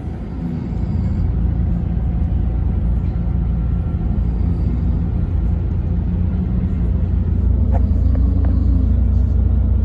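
Scania K440 coach's 13-litre six-cylinder diesel engine running with a steady deep rumble. A little after seven seconds it gets slightly louder and its pitch rises briefly, then drops back, with a couple of faint clicks.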